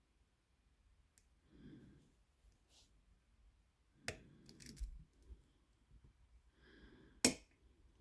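Sparse sharp clicks of lock picks and tension tool working the pins of the handmade Nailbiter challenge lock, a small cluster midway and the loudest single click near the end, with soft breathing between.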